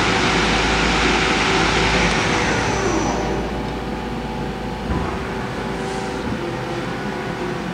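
Doosan Puma GT-3100L CNC lathe spindle and 12-inch three-jaw chuck spinning at about 1,800 RPM, then spinning down, its whine falling in pitch until the chuck stops about three seconds in. A steady machine hum continues after, with a soft knock about five seconds in.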